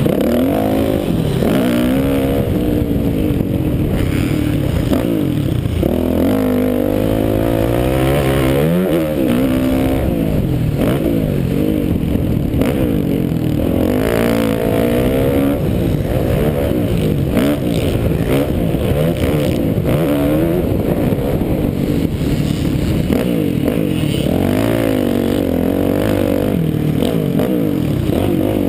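Yamaha motocross bike's engine ridden hard around a dirt track, revving up and dropping back over and over, its pitch climbing and falling every second or two.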